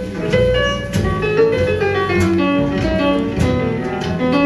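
Instrumental music with a run of sharply struck, decaying notes, played back through the Kiom Sonata 15 hi-fi loudspeakers in the demo room.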